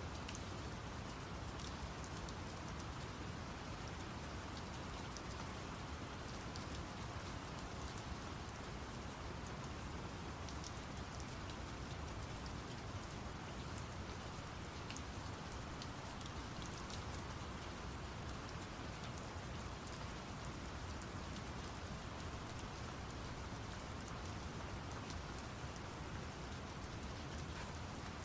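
Steady rain pattering, with many fine drop ticks, layered over a constant low brown-noise rumble.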